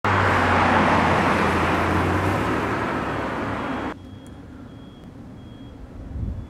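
Street traffic: a motor vehicle running close by with engine hum and road noise, slowly fading. After a sudden cut there is quiet street ambience with a faint high beep repeating.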